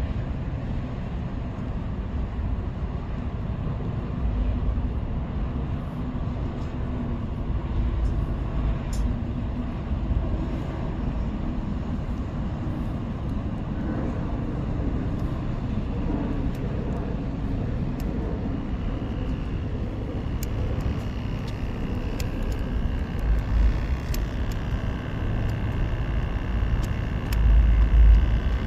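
Steady low outdoor rumble, with gusts of wind buffeting the microphone several times, the strongest near the end, and a few faint clicks.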